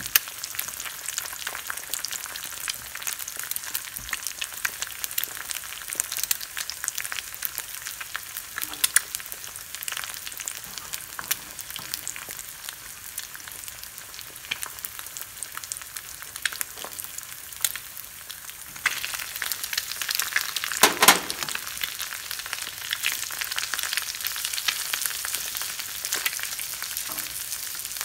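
Two eggs sizzling and crackling as they fry in a nonstick skillet. About two-thirds of the way through, the sizzle grows louder, with a brief loud clatter, as chopped ham is added to the pan.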